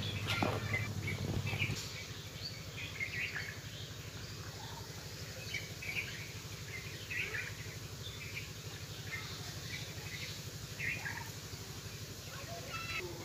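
Small birds chirping in short, scattered calls over a steady low background hum, which is louder for the first couple of seconds.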